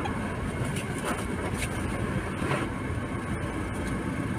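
Steady low vehicle rumble heard inside a car, with a few faint clicks.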